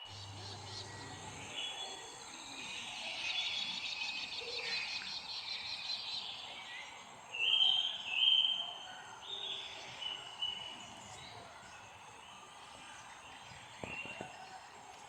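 Several wild birds calling and singing: a fast trill runs from about two to six seconds in, and two loud short calls come about eight seconds in, over a low background hiss.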